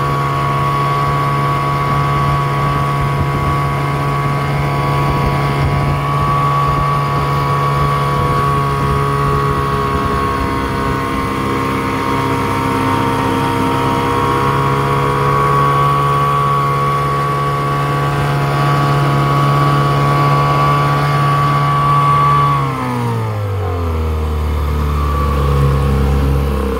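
1956 Wizard Super 5 two-cylinder outboard motor running steadily under way, then throttled back about 23 seconds in, its pitch falling to a slow idle.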